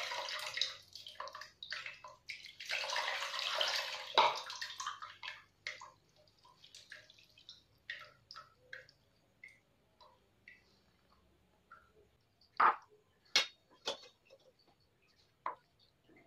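Water pouring and splashing off boiled tapioca pearls as a perforated steel steamer insert is lifted out of the pot to drain, thinning after about five seconds to scattered drips. A few sharp knocks follow near the end.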